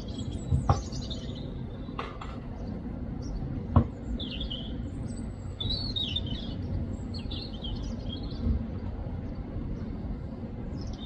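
A robin chirping in short, high twittering phrases scattered through, over a steady low rumble of background noise. A few sharp knocks break in, the loudest about four seconds in.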